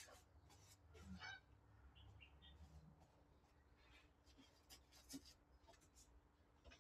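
Near silence: faint room tone with a low hum and a few faint clicks.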